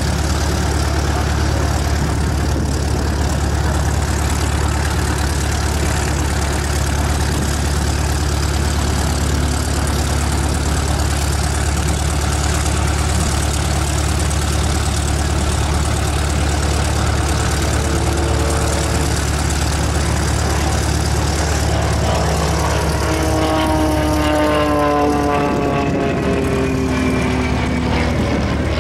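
CAP 10B aerobatic plane's propeller engine running in flight, over a steady low rumble. From about three-quarters of the way in, the engine's pitch falls steadily as the plane passes close by.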